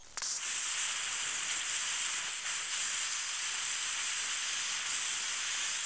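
Handheld gas soldering torch burning with a steady hiss, its flame heating a copper pipe joint to solder a union. The hiss starts abruptly a moment in.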